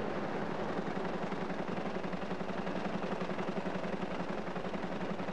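Newspaper web printing press running at speed: a steady mechanical noise with a low hum and a fast, even beat from the rotating machinery.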